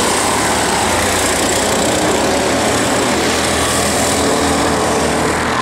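A pack of go-karts driving past, several small kart engines running loudly together as they go through a corner.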